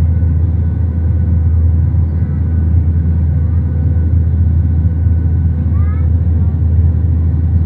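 Airliner cabin noise: a steady, loud low drone of the aircraft in flight, with faint passenger voices murmuring underneath.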